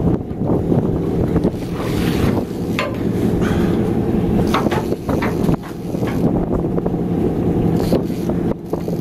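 Fishing boat's engine running low and steady under wind buffeting the microphone, with a few short clicks near the middle.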